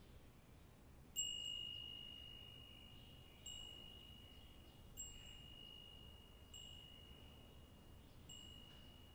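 A glass wind chime ringing faintly: five single strikes of one clear, high bell tone a second or two apart, each left to ring out, the first the loudest.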